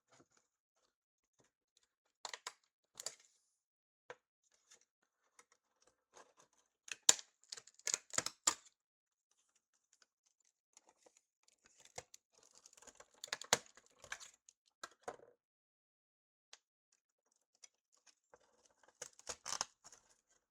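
Small tools and fingers working on an old iPhone's internal parts during disassembly: scattered sharp clicks, taps and short scrapes in a few clusters, with quiet between them.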